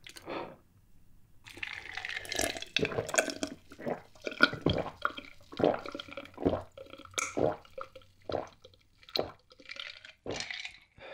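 A person gulping a dark iced drink from a glass jar mug, a long run of separate swallows, more than one a second, starting about a second and a half in.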